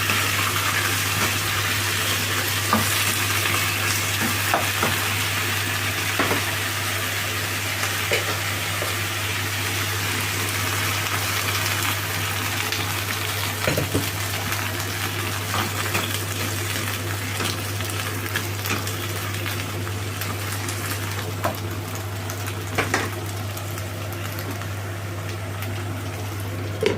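Choi sum and garlic stir-frying in a hot pan: steady sizzling with occasional clicks and scrapes of the stirring utensil, easing a little toward the end, over a steady low hum.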